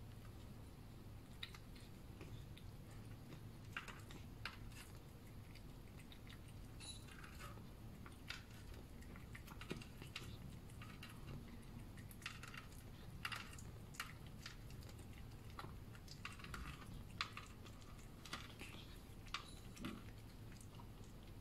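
A cat eating wet food from a plastic tray: irregular small smacking and chewing clicks, several in quick runs, over a low steady hum.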